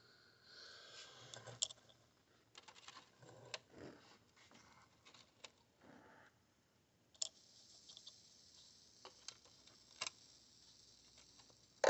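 Faint clicks and light taps of bench handling: a mokume gane ring being flipped over and set on a soldering block, and paste flux being taken from its jar. A faint steady hiss comes in about seven seconds in.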